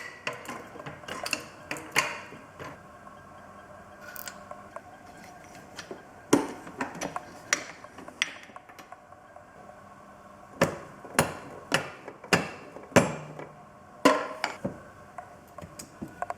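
Hand tools clinking and knocking on metal as the last engine mounting bolts are worked out of a quad bike frame. Scattered sharp knocks, with a quick run of five evenly spaced knocks about two-thirds of the way in.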